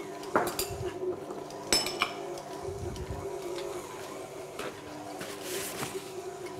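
KitchenAid stand mixer running steadily, its beater kneading bread dough with tomatoes in a glass bowl. A few sharp clinks come in the first two seconds.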